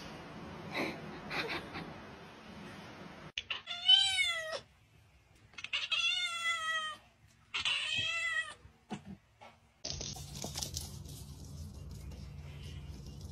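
A domestic cat meowing three times in quick succession, each a drawn-out meow of about a second, the middle one the longest.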